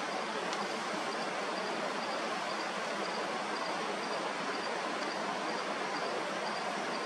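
Steady rushing of running water from the falls, with an insect chirping high and regularly, about twice a second.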